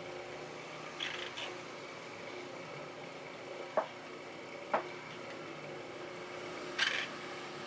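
Metal spatula scooping pork filling from a stainless steel pan: brief scrapes about a second in and near the end, and two sharp ringing taps of metal on metal around the middle. A steady machine hum runs underneath.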